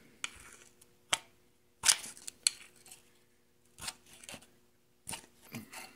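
Flathead screwdriver prying behind a partly removed steel freeze plug in an engine block: a handful of sharp, irregular metal clicks and short scrapes as the tip works the plug loose.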